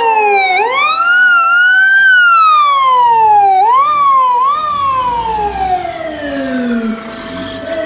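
Fire truck siren wailing: the pitch sweeps up quickly and falls away slowly, about three times, over a second, steadier tone that slowly drops.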